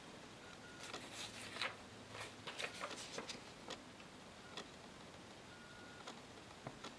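Paper note cards being handled: light rustles and small clicks as a card is picked up and held up, busiest in the first few seconds and sparser after.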